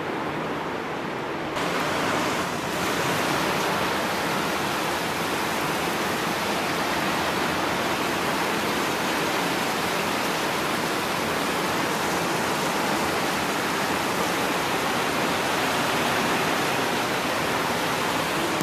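Steady rushing of water, a dense even hiss that grows louder and brighter about one and a half seconds in.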